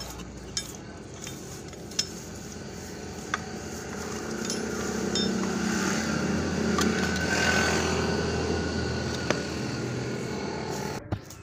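A few sharp metallic clinks from handling the parts of an opened tractor steering box, over a steady background noise that grows louder in the middle and then drops away.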